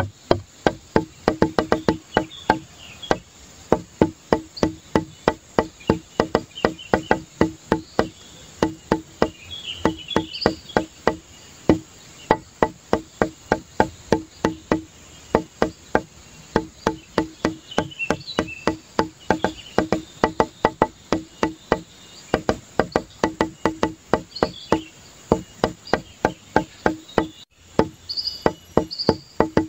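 Background music built on a quick, even beat of clicky, wood-block-like hits, with high chirps scattered over it.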